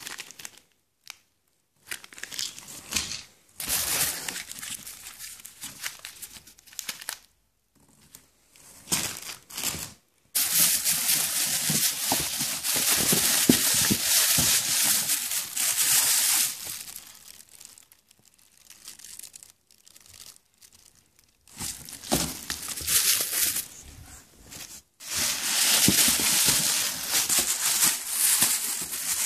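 Plastic bags around firework shells crinkling and rustling as they are handled and pulled out of a box. The sound comes in bursts with short pauses, with a long, loud stretch in the middle and another near the end.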